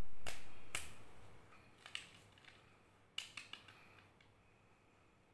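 Crackling and clicking of the plastic-foil wrappers on Kinder Joy egg packs as they are picked up and handled: a few sharp crinkles in the first second or so, then a quick cluster about three seconds in.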